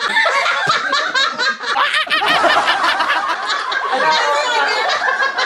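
A woman laughing hard in quick repeated bursts, with other voices laughing along.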